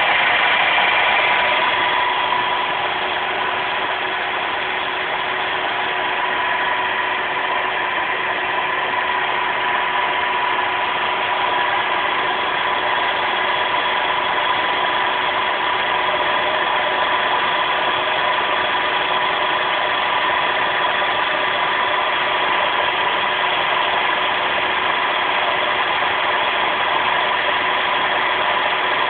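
Hydraulic power pack of a wire-rope press running: its electric motor and pump give a steady mechanical hum with a few held tones.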